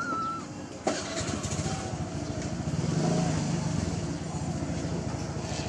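A motor vehicle's engine running close by, a dense even pulsing that starts suddenly about a second in, is loudest around three seconds in, then holds steady. A brief high squeak comes at the very start.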